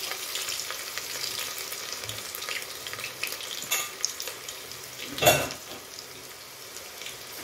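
Garlic cloves sizzling and crackling in hot oil in an aluminium pot, the tempering (phodni) being fried. A single sharp knock about five seconds in.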